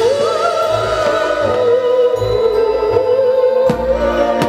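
Fireworks show music with a long held melody line, over the low booms of firework shells bursting three or four times and a sharp crack near the end.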